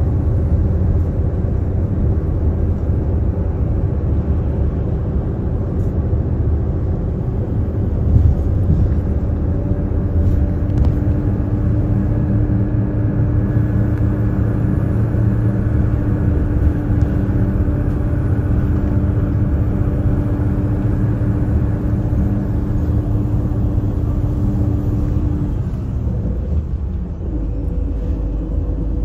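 Daewoo FX116 bus engine running under way, heard from inside the cabin: a steady drone over road rumble. Near the end the engine note dips briefly, then picks up again.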